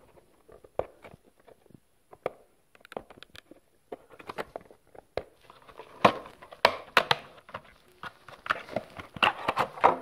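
Clear plastic packaging being handled and opened by hand: a run of crackles and clicks, sparse at first and busier and louder in the second half.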